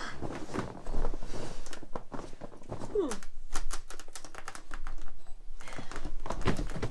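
Intex Classic Downy flocked vinyl air bed crackling and creaking under a person's weight as she shifts and rolls onto her back, a rapid run of small clicks.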